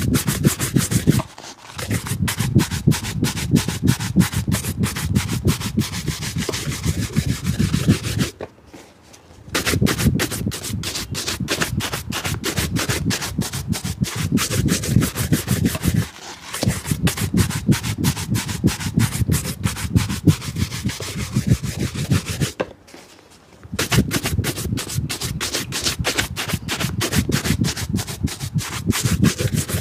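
Fast back-and-forth scrubbing of a shoe, several strokes a second, stopping briefly a few times.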